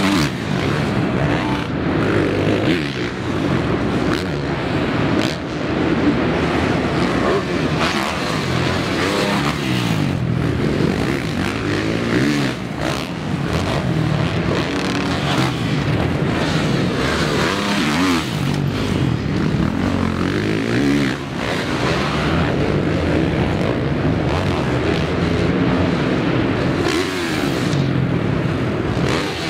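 Supercross dirt bikes' four-stroke single-cylinder engines revving hard and falling back again and again as they are ridden over the jumps. The pitch rises and drops with each throttle change, and more than one engine is often heard at once.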